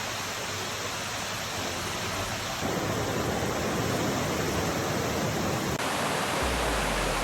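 Steady rushing of water from the storm flooding, a dense hiss with no pitch that grows fuller and deeper about two and a half seconds in and changes again near six seconds.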